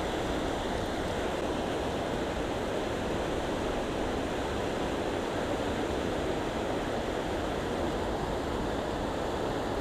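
Fast floodwater of a swollen, muddy river rushing past, a steady even rush.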